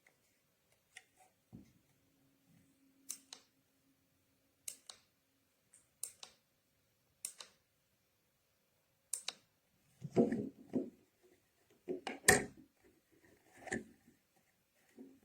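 Hard plastic object being handled at close range: a run of single sharp clicks about every second and a half, then louder knocks and rustling from about ten seconds in.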